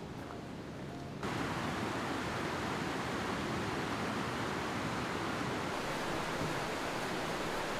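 Steady rushing of fast-flowing water, like a mountain river or waterfall, cutting in abruptly about a second in over a quieter outdoor background.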